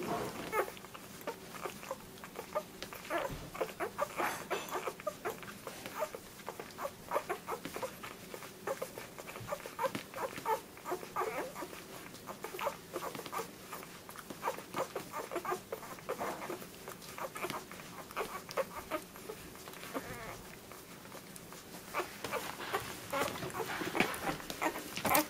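Week-old poodle puppies nursing: a dense, irregular run of small squeaks, grunts and suckling smacks.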